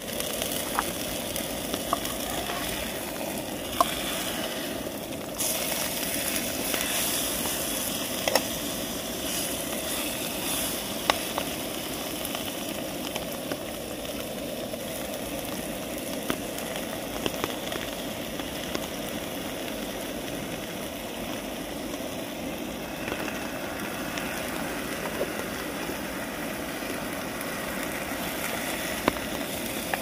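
A large steak with onions sizzling steadily in a frying pan, with occasional light clicks as food is handled in the pan.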